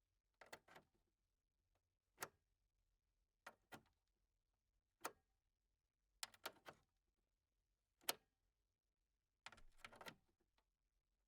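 Computer cable plug being pushed into a socket over and over: a series of sharp clicks and short rattly clusters of clicks, one every second or two.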